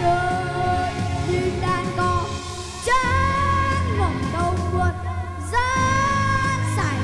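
A boy singing a Vietnamese song into a handheld microphone over pop instrumental accompaniment, holding long notes, some with vibrato.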